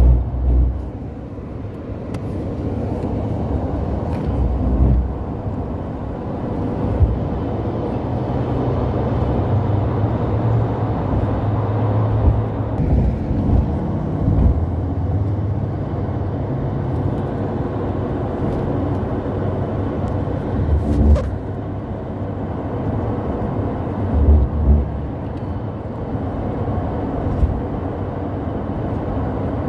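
Road and engine noise heard inside a moving car: a steady low rumble, with a few louder low thumps scattered through it.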